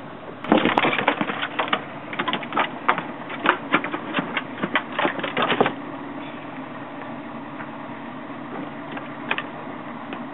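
A freshly landed dorado (mahi-mahi) thrashing on a fiberglass boat deck: rapid, irregular knocks and slaps for about five seconds that stop suddenly as the fish is held down. An outboard motor idles steadily underneath.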